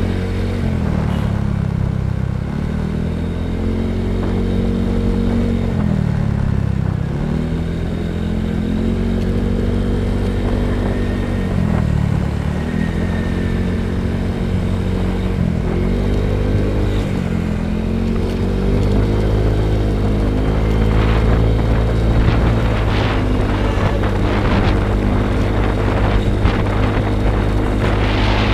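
Motorcycle engine running under way, its note dipping and climbing back again every few seconds as the throttle is eased and reopened, over a heavy low wind rumble on the microphone. In the last third, rougher crackling wind buffeting joins in.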